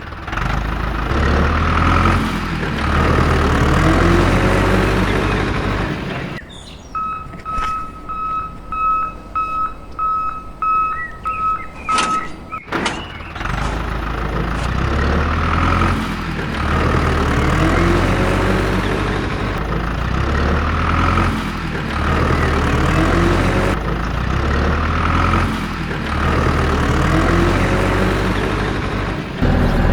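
A heavy vehicle's engine running. The engine drops away for a few seconds in the middle while a high reversing beeper sounds, about one and a half beeps a second.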